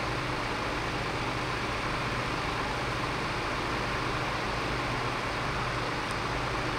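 Fire engine idling: a steady, unchanging low engine hum with an even hiss over it.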